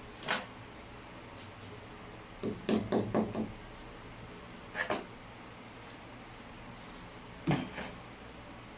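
Scattered light knocks and clinks of hard objects being handled. There is a quick cluster of several about three seconds in, and single ones near five and seven and a half seconds.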